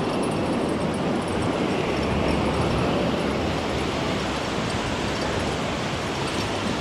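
Steady rushing noise of wind on the microphone and surf washing on the beach.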